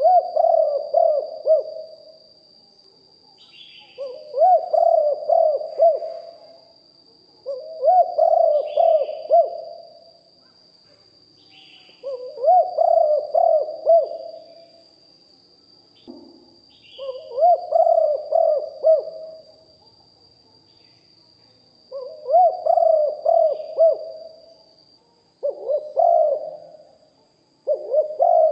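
Spotted dove cooing, repeating its multi-note song phrase about every three to four seconds, seven times.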